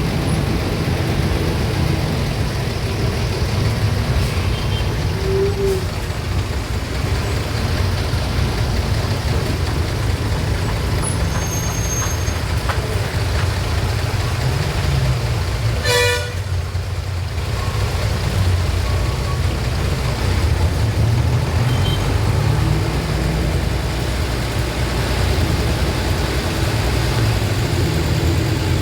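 Road traffic: a steady rumble of vehicle engines and tyres, with one short horn toot about sixteen seconds in.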